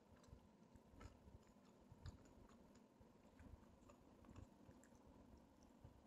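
Faint chewing of hummus-dipped french fries, with scattered soft mouth clicks.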